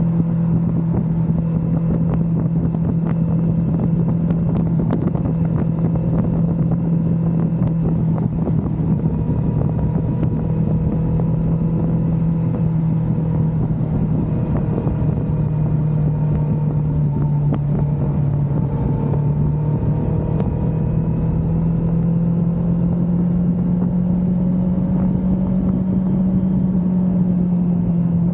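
Kawasaki Ninja 400's 399 cc parallel-twin engine running at a steady highway cruise, with wind and road noise around it. The engine note sags a little past the middle and climbs again near the end.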